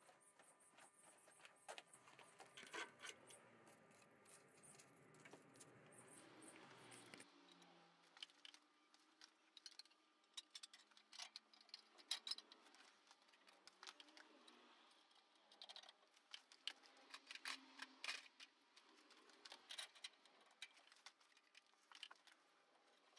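Faint, scattered metallic clicks and clinks of parts being handled as a motorcycle's aluminium crankcase is fitted into the frame.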